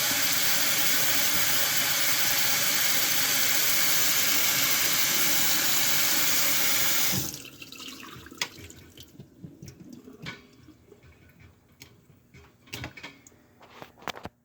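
Kitchen sink faucet running water down the drain through a newly installed garbage disposal, a leak check of the new connections; the water is shut off suddenly about halfway through. A few faint clicks and knocks follow.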